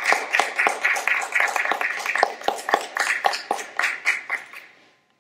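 A small audience applauding, many separate hand claps, dying away near the end.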